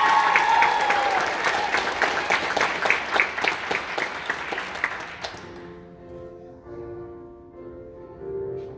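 Audience applauding and cheering, the clapping thinning and dying away about five seconds in. Soft, sustained instrumental chords then begin.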